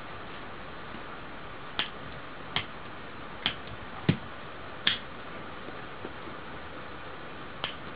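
Piezo igniter from a lighter being clicked: five sharp snaps less than a second apart, the fourth the loudest, then one more after a pause of nearly three seconds.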